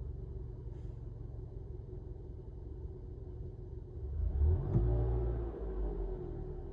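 2021 Toyota RAV4 heard while it runs, a steady low rumble with a held hum. About four seconds in, a louder low grinding rumble swells, with a tone that rises and then falls, and eases after about a second and a half. This is the unusual grinding noise whose source the owner cannot find.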